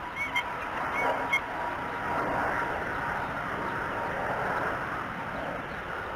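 Steady outdoor rushing noise with a faint steady high tone. A few short, high bird chirps and light clicks come in the first second and a half.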